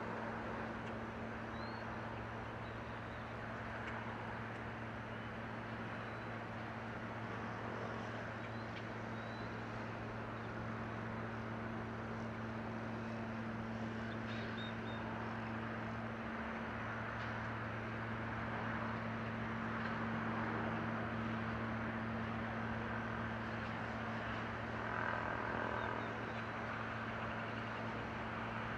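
Jet engine noise from a Boeing 737-900ER's two CFM56-7B26 turbofans at takeoff power, as the airliner rolls, lifts off and climbs away: a steady, even roar with a low steady hum underneath, swelling slightly past the middle.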